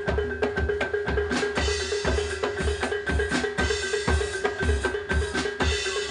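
Javanese jaranan percussion music. A deep bass drum beats about twice a second under busy drum strokes and struck metal or wooden keys, with a steady held tone above.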